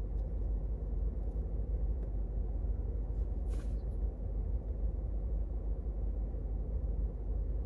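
Steady low drone of a car running, heard inside its cabin, with a short hiss about three and a half seconds in.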